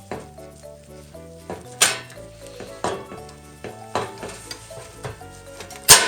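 Background music with a steady melody, with sharp knocks cutting through about once a second, the loudest near the end.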